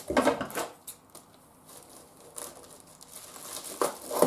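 Plastic packaging crinkling as it is handled, loudest right at the start and again near the end, with softer rustles between.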